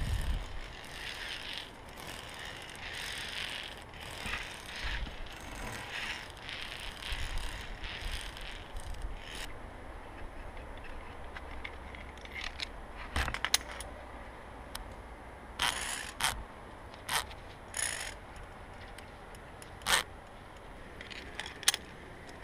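Via ferrata lanyard carabiners scraping along and clinking against the steel safety cable. Rustling scrapes come first, then several sharp metal clicks in the second half.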